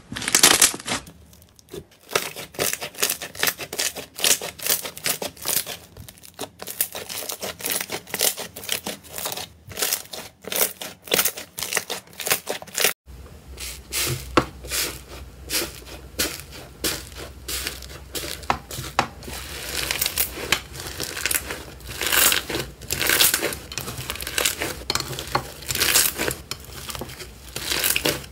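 Slime being pressed, squeezed and stretched by hand: a dense, irregular run of crackles, small pops and tearing sounds. The texture of the sound changes abruptly about halfway through, as a different slime takes over.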